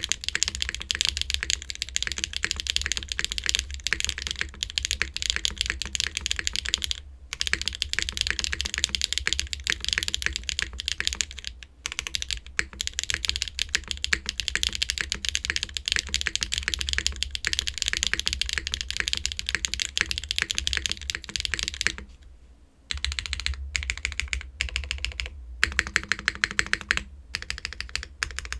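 Typing on a Geonworks F2-84 mechanical keyboard with lubed HMX Clouds switches in an aluminum plate and GMK keycaps: fast, continuous keystrokes with a loud, sharp, somewhat thin sound, pausing briefly a few times.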